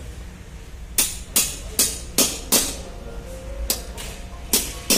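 A hammer striking metal in a run of sharp blows, about two or three a second: five quick blows, a pause, then three more near the end, each with a short ring.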